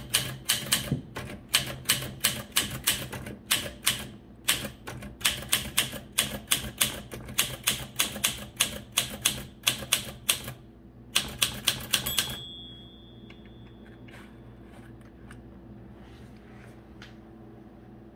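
Olympia portable manual typewriter being typed on: sharp key strikes, about three a second, then a short pause and a quick run of strikes. The typing stops about two-thirds of the way through, followed by a brief faint ring and a few soft clicks.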